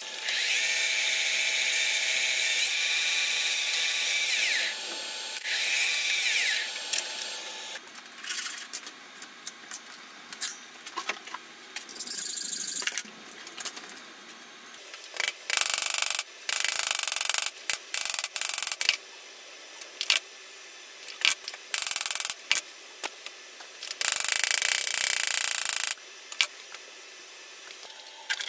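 A twist drill in a machine's drill chuck boring through a metal tube: a steady, high-pitched drilling sound for about four seconds, then again briefly. Clicks and knocks follow, then a series of short bursts of tool noise in the second half.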